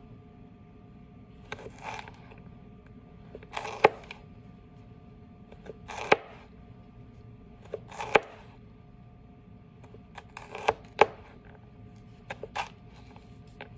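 Chef's knife cutting carrot batonnets into small dice on a plastic cutting board: a sharp knock of the blade on the board every couple of seconds, some in quick pairs, with softer crunches of carrot between.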